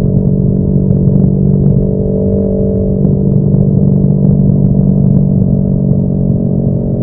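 Yamaha YZF-R3's parallel-twin engine through an M4 aftermarket exhaust, recorded on board the moving bike, running at fairly steady revs with a constant drone; the pitch shifts slightly about three seconds in.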